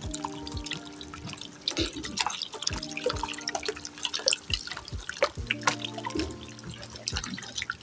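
Water being poured gradually into a bowl of thickening hair conditioner as it is stirred: irregular splashing, dripping and sloshing.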